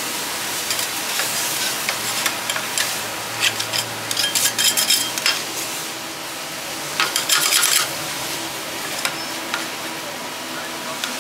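Food frying and sizzling in a pan while it is stirred, with two bursts of rapid clicks of a utensil against the pan, one around the middle and one a little later.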